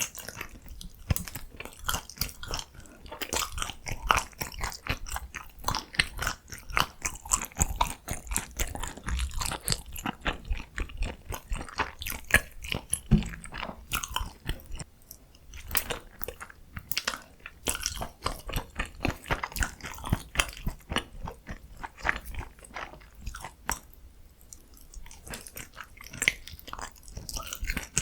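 Close-miked chewing and biting of food, wet and crunchy, with many quick irregular clicks and smacks that continue without pause.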